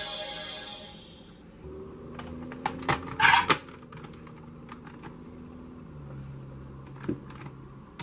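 Transformation-belt sound effects: a few sharp mechanical clicks and a short loud hissing burst about three seconds in, then another click later on, over a low steady hum.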